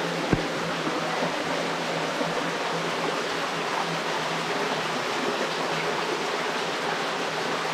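Steady rush of a cave stream's flowing water, with one sharp knock just after the start.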